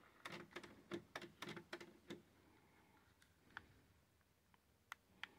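Near silence broken by a quick run of about ten faint clicks in the first two seconds, then a few single clicks near the end: buttons being pressed on a hand-held remote control.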